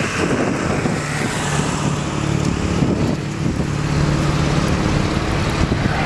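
Wind buffeting the microphone, with a pickup truck's engine running at a steady pitch as the truck drives past through the snow.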